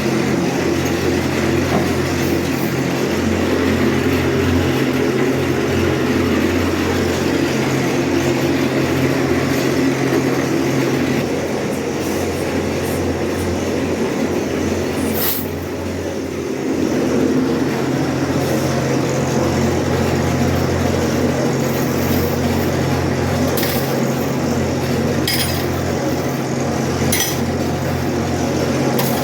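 A machine motor running with a steady hum, with a few sharp metallic clinks in the second half.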